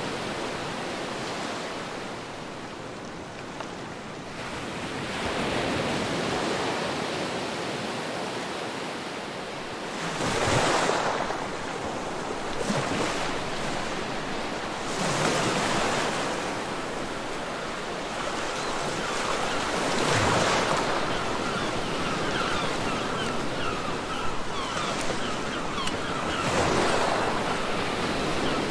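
Ocean surf: waves breaking and washing up on a beach, in repeated swells every few seconds.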